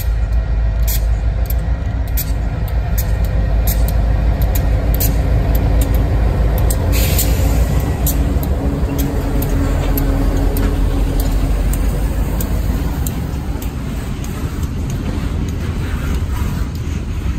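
Two Union Pacific diesel locomotives passing close by, their engines running with a steady low drone and sharp clicks of the wheels over the rails. A brief hiss comes about seven seconds in, and the sound eases off as the train moves away near the end.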